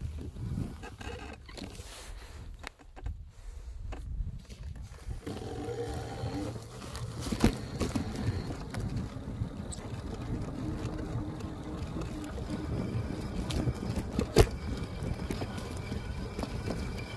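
Electric bike riding off-road: a steady low rumble of wind and tyres on rough ground, with sharp knocks and rattles from the bike over bumps, the loudest about fourteen seconds in.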